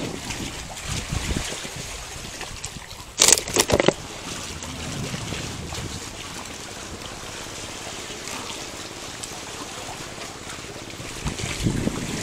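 A short, loud splash of water about three seconds in, against steady wind noise on the microphone.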